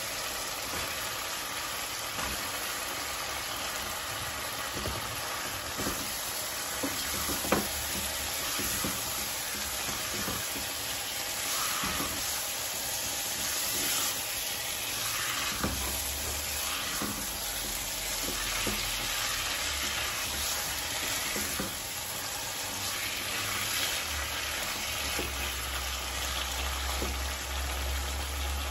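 Chicken pieces sizzling in hot oil and spice paste in a nonstick pan, stirred with a silicone spatula, with scattered knocks of the spatula against the pan and one sharp knock about seven and a half seconds in.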